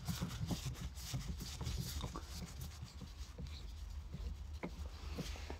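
Faint rubbing and scattered small clicks of a hand twisting the worn shift knob of a 2013 Mitsubishi Lancer's manual gearbox loose on its threaded shift lever, over a low steady hum.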